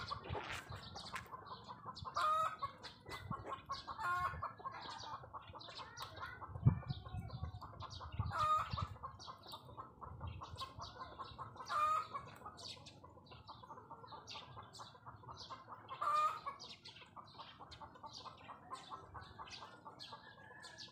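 Chickens clucking, with a short, louder call about every four seconds over steady quick clucking, and a dull thump about seven seconds in.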